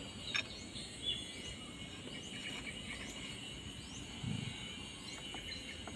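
A few light metallic clicks and a low knock as the threaded rod and pipe spacer of a homemade injector-sleeve puller are handled on the engine's cylinder head. Faint chirping repeats about twice a second in the background.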